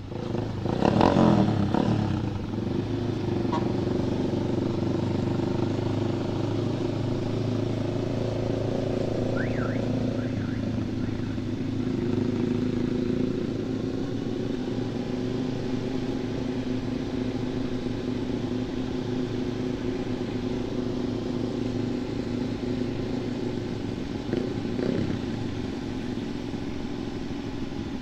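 Sport motorcycle with an aftermarket exhaust revving up hard in the first couple of seconds as it pulls away, then running steadily at cruising speed.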